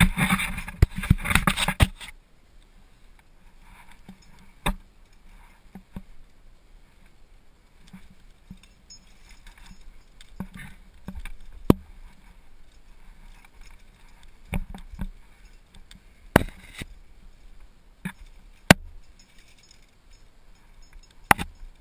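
Metal climbing hardware, carabiners and protection, clattering on the harness, a dense burst of clinks in the first two seconds, then single sharp clicks and knocks every few seconds as the climber moves up the rock.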